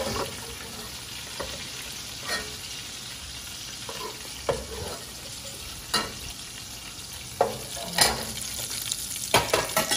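Oil sizzling and frying in an aluminium pan with bits of chopped garlic, with sharp clicks and knocks of a utensil against the pan or plate every second or so, several in quick succession near the end.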